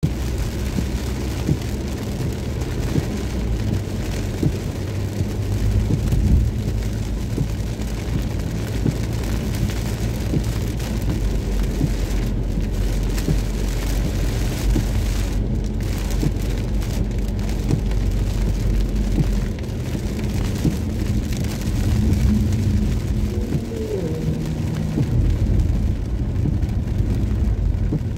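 Rain hitting a moving car's windshield and body, heard inside the cabin as many small ticks of drops over an even hiss of tyres on the wet road and a steady low rumble of the car.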